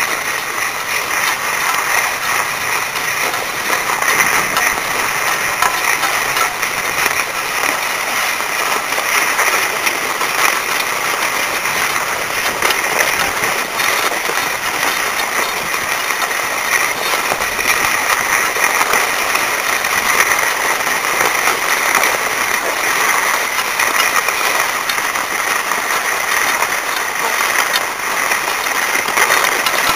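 Steady, crackling scrape of sliding over the groomed, hard-packed snow of a surface tow lift's track while being pulled uphill.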